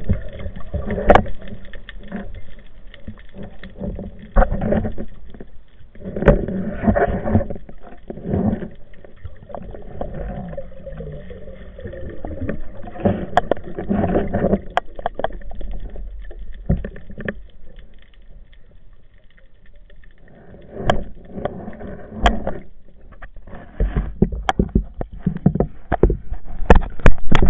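Underwater noise heard through a camera's waterproof housing: muffled, uneven surges of water rushing and bubbling, with sharp clicks and knocks scattered throughout.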